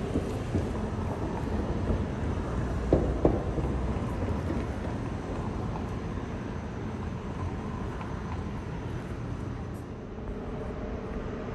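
Steady low rumble of city street traffic, with two short knocks about three seconds in.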